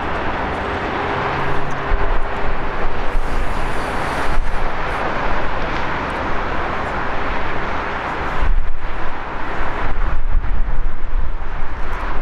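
Two CFM56-7B turbofans of a Boeing 737-700 on the takeoff roll: a steady, rushing jet noise. From about two-thirds of the way in, wind buffets the microphone in low gusts.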